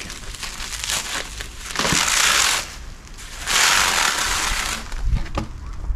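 Packing material rustling and crinkling as it is pulled out of a rod shipping tube. It comes in two long bursts, about two seconds and three and a half seconds in, with a few small clicks and knocks around them.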